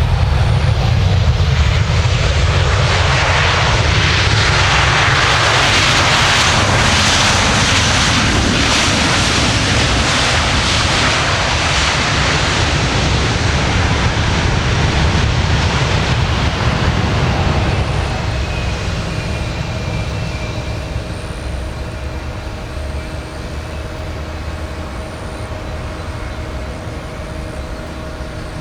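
Airbus A320-200 jet engines roaring loudly as the airliner lands. The roar eases a little past halfway, leaving a steadier, quieter engine whine.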